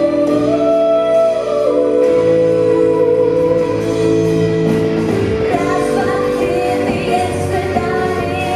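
Live band playing a song, with a woman singing over bass guitar, keyboard and drums; the held notes give way to a fuller, busier passage a little past halfway.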